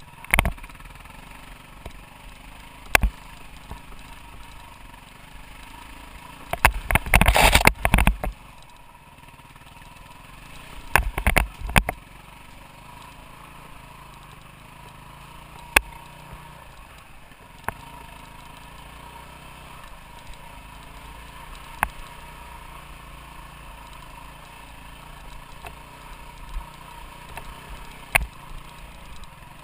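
Off-road motorcycle engine running at a steady, fairly low note, heard from a camera mounted on the bike. Sharp knocks and louder bursts of rumbling noise from the bike jolting over the rough trail break in, the biggest about seven seconds in and again around eleven to twelve seconds.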